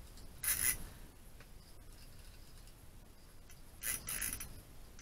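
Short rubbing and scraping of hands working a small ice-fishing reel and line, twice, over a low steady rumble.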